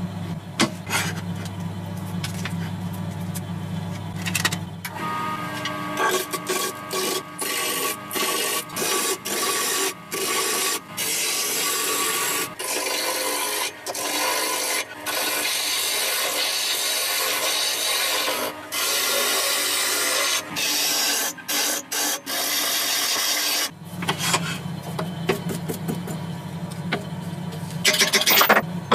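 A gouge cutting a spinning branch blank on a JET wood lathe: a loud, rough scraping broken by many short pauses as the tool comes off and goes back onto the wood. It starts about five seconds in and stops a few seconds before the end. A steady low hum is heard before and after the cutting.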